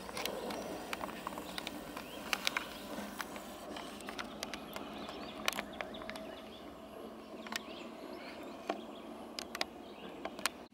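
Quiet outdoor ambience: a faint steady hiss with scattered sharp clicks and ticks through it.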